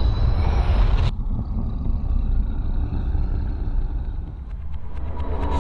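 Deep, steady low rumble from a teaser video's soundtrack played over a hall's speakers, with a hiss over it that cuts off sharply about a second in.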